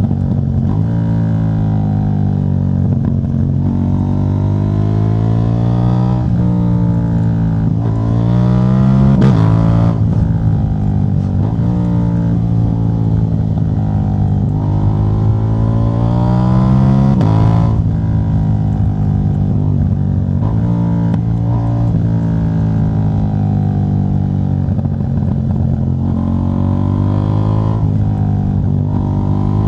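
KTM 790 Duke's 799 cc parallel-twin engine running through a de-catted exhaust, with no catalytic converter. Its pitch rises and falls with the throttle, with two sudden drops in pitch, like gear changes.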